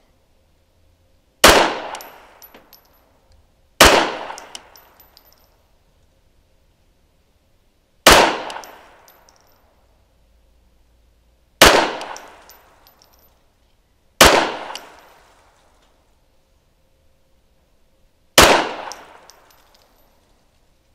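Six shots from a Smith & Wesson Model 629 .44 Magnum revolver, fired one at a time several seconds apart. Each is a sharp, loud report that rings out and fades over about a second.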